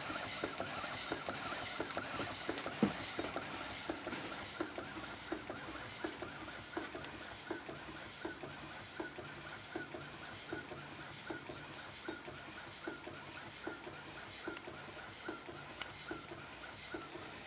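Taylor Twin steam boat engine running slowly with an even, repeating beat of exhaust puffs and knocks, gradually slowing and getting quieter. The knocking comes from bearings that are not yet adjusted, the beat is uneven between the two cylinders because the valve timing still needs tweaking, and steam leaks at the loose piston rod glands.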